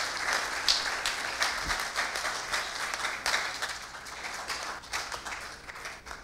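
Congregation applauding, the clapping thinning out and dying away toward the end.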